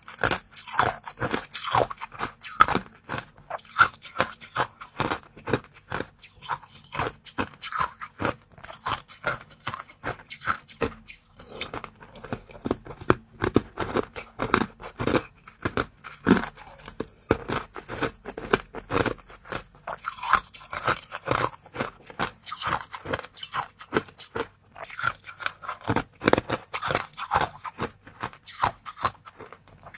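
Someone biting and chewing crunchy frozen treats close to the microphone: a dense run of crisp crunches and crackles with a few short pauses.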